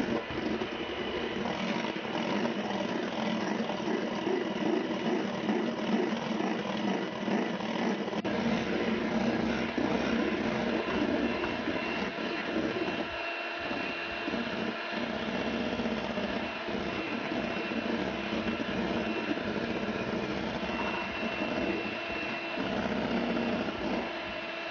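Electric hand mixer running steadily, its twin beaters whipping egg whites in a metal bowl toward stiff peaks for meringue.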